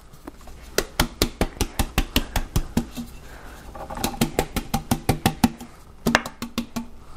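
Metal cake pan whacked repeatedly against the sink to knock out the excess flour after greasing and flouring: quick sharp knocks, about five a second, in three runs with short pauses between.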